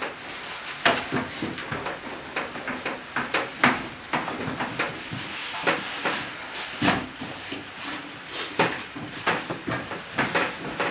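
Irregular knocks and clatter of hands working at food preparation, over a steady background noise.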